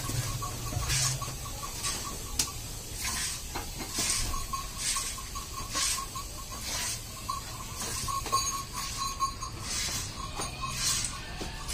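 Buffalo being milked by hand: short hissing squirts of milk hit a metal pail about once a second.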